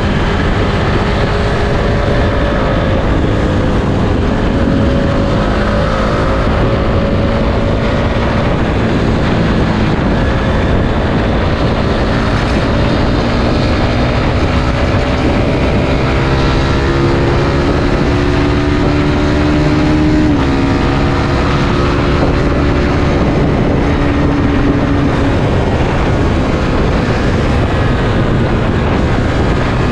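Suzuki Satria F150's single-cylinder four-stroke engine running under way, mixed with heavy wind and road rush. Its pitch climbs slowly for several seconds, dips sharply about two-thirds of the way through, then holds fairly steady.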